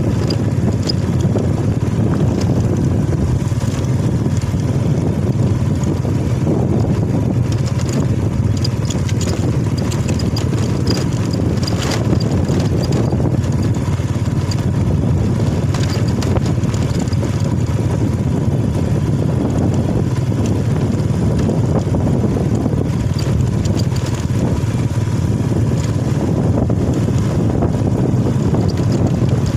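Motorcycle engine running steadily while riding, with wind buffeting the microphone; a steady low rumble with a faint whine, and a few brief clicks about twelve seconds in.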